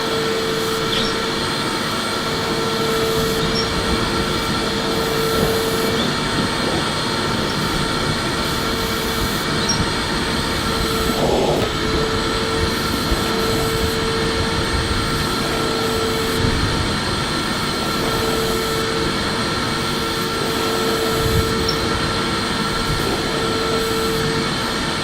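Electric vacuum cleaner running steadily: a continuous motor whine and airflow rush with a steady hum tone.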